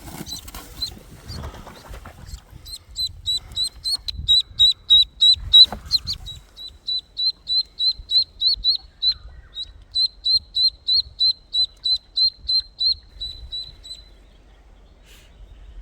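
Duckling peeping: a long run of short, high peeps at about four a second, stopping about two seconds before the end. There are a few rustles and bumps in the first couple of seconds.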